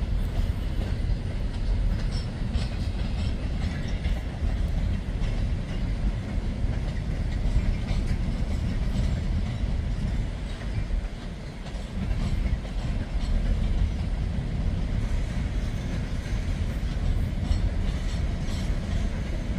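A string of open hopper freight cars rolling slowly past during switching: a steady low rumble of wheels on rail, with faint scattered clicks.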